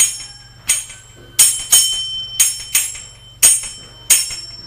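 Small hand cymbals (ilathalam) of an Ottan Thullal accompaniment struck in a steady rhythm. There are about eight bright ringing strokes, some in quick pairs, each ringing out and fading.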